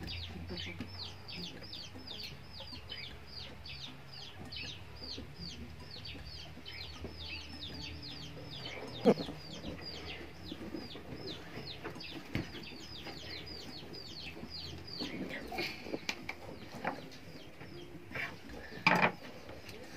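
Chickens peeping over and over in short, high, downward-sliding calls, about three a second, which thin out in the second half. A single sharp knock comes about nine seconds in, and a short rustle near the end.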